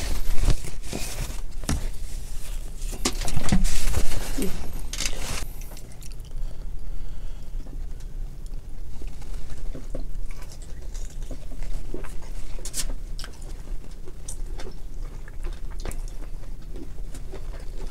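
Eating a seafood boil: crab and lobster shells being cracked and picked apart by hand, with chewing. A louder burst of cracking and crinkling comes about three to five seconds in, then only scattered small clicks, over a steady low hum.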